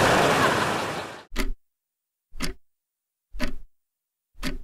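Countdown-timer clock sound effect ticking once a second, four sharp ticks with silence between. Before the first tick, a rushing noise fades away over the first second.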